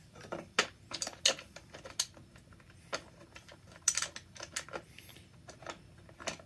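Irregular light clicks and taps of small metal and plastic parts being handled and fitted on a Poulan Super 31 chainsaw engine during reassembly, with a few sharper clicks about a second in and near four seconds.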